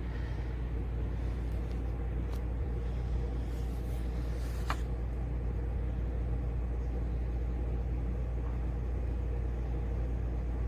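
Steady low rumble of a vehicle on the move, with a faint click about five seconds in.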